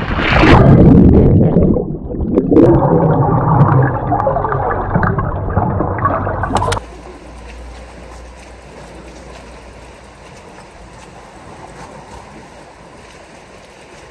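Heavy breathing through a centre-mount swim snorkel held right at the microphone, loud and rushing, with a gurgle of water in the tube, in two long stretches with a short break about two seconds in. It cuts off suddenly about seven seconds in, leaving only faint outdoor background.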